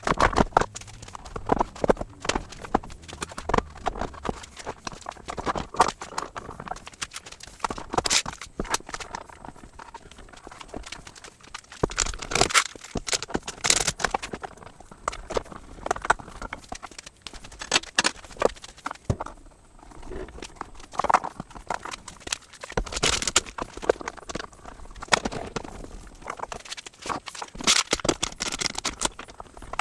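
Irregular knocks and clatters of clamps and boards being handled and tightened during a wood glue-up.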